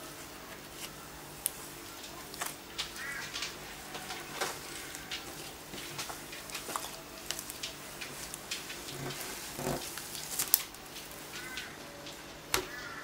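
Stiff slime being stretched, squeezed and torn apart by hand, giving off irregular sharp clicks and pops as air pockets burst.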